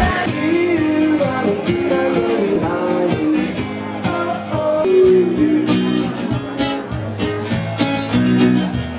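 Music with acoustic guitar, and what may be a singing voice carrying a melody.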